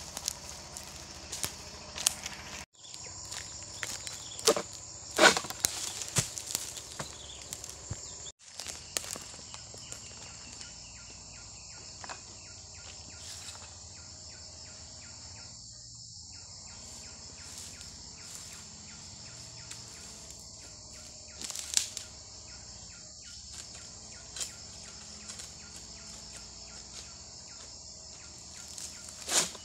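Steady, high-pitched insect chorus with scattered sharp knocks and rustles, the loudest about five seconds in, about twenty-two seconds in, and just before the end. The sound drops out briefly twice early on.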